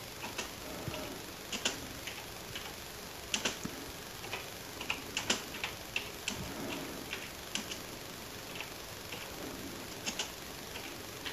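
PS/2 computer keyboard keys being pressed, faint sharp clicks in small irregular clusters with short pauses between, as hex bytes of a program are typed in by hand.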